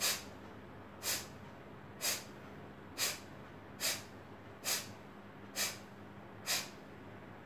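Kapalbhati breathing: eight short, sharp, forceful exhalations through the nose, about one a second, each pushed out by pulling the belly in.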